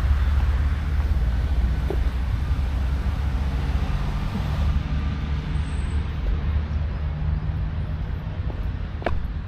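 Steady low rumble of road traffic, with a faint engine hum; a single sharp click near the end.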